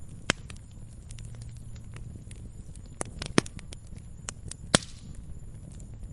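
Wood campfire crackling: a steady low rumble scattered with small ticks and four sharp pops, the two loudest a little past the middle.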